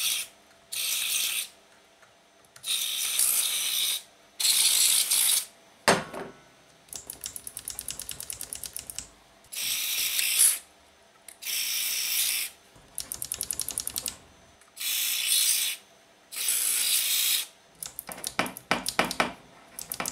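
Aerosol contact cleaner sprayed in short hisses, about eight bursts of a second each, into the slide potentiometers of an Arrow EQ1800 graphic equalizer. Between the sprays come runs of quick rattling clicks as the stiff, dirty sliders are worked back and forth to spread the cleaner, with one dull knock about six seconds in.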